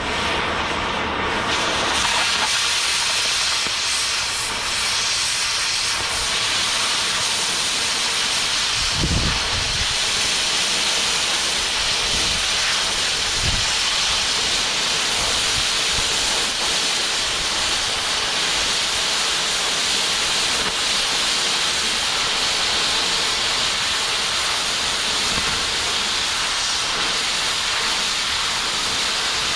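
Oxy-acetylene cutting torch hissing steadily as it cuts a bevel along the edge of a steel plate. About two seconds in, the sound turns into a higher, even hiss as the cut gets going.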